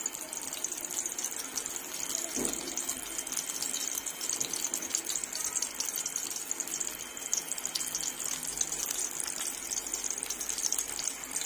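Steamed eggplant frying in hot cooking oil in a pan: a steady sizzle with fine crackling, as spoonfuls of beaten egg and corned beef mixture are poured over it.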